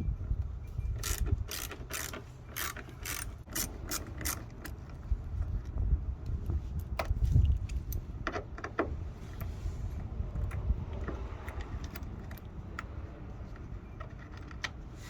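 A 1/4-inch ratchet with a T15 Torx bit clicking in short runs as it backs out bolts, with a dense run of clicks from about one to four seconds in and another around seven to nine seconds. Scattered single clicks follow over a low handling rumble.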